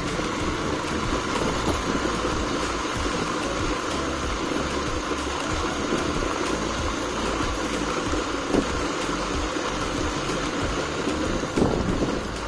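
A vehicle driving along a street, its engine running steadily over road noise, with two brief louder knocks in the second half.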